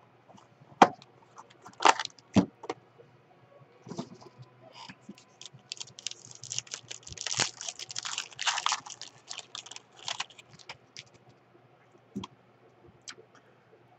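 Trading-card box being opened with a few sharp clicks and snaps, then the foil pack wrapper inside torn open and crinkled, a dense run of crackling through the middle.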